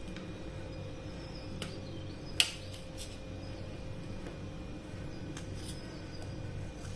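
Knife slicing chayote (chow chow) on a cutting board: a few sharp cuts at irregular intervals, with one louder knock about two and a half seconds in, over a steady low hum.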